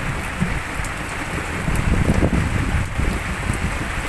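Heavy rain falling steadily, an even hiss, with a low rumble swelling about two seconds in.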